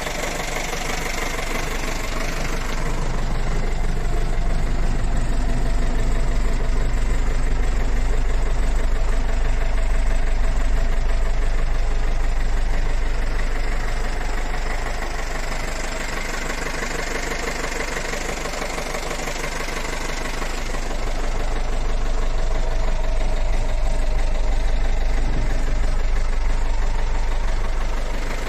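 Engine of an OM Cerbiatto light truck idling steadily, growing louder twice and easing back between.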